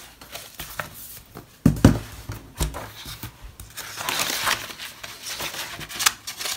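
Sketchbook pages being handled and turned: paper rustling and crinkling with small clicks, and two dull thumps of the book being moved about two seconds in.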